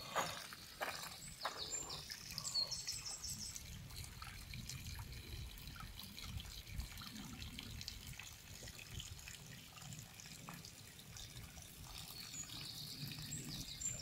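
Spring water trickling steadily from a wooden spout into a hollowed-log trough. Birds sing quick series of high notes over it about two and a half seconds in and again near the end.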